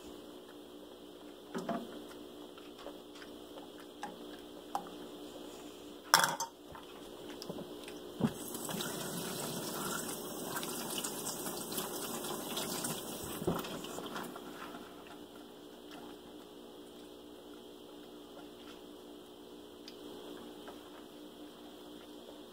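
Kitchen tap running into a stainless steel sink for about six seconds, starting about eight seconds in. A sharp metallic knock comes a couple of seconds before it, among a few lighter clinks.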